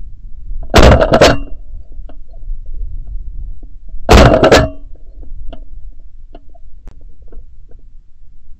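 Two shotgun shots about three seconds apart. Each is a very loud blast that clips, with a short tail, recorded from a camera mounted on the gun's barrel. A low rumble of wind and handling sits between them.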